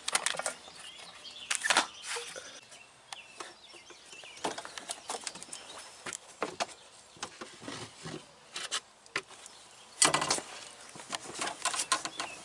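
Scattered knocks, clicks and rustling of a person climbing up into a big truck's cab and moving about to reach the clutch pedal. There is a longer rustling noise about a second and a half in, and the loudest one about ten seconds in.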